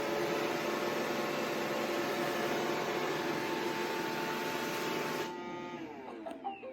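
iRobot Roomba i3+ vacuum motor running with a steady whine, then switching off about five seconds in and winding down in falling pitch, with a few short tones near the end.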